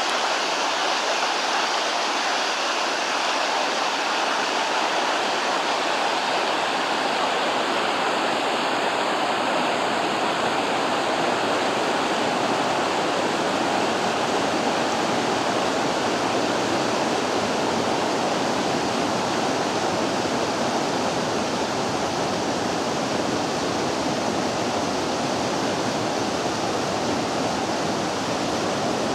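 The Vydra, a rocky mountain river, rushing steadily: an even, unbroken rush of water that holds the same level throughout.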